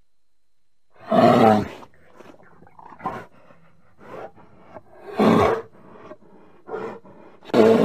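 A bear calling in repeated loud, rough calls: one about a second in, another about five seconds in and a third at the end, with shorter, quieter calls in between.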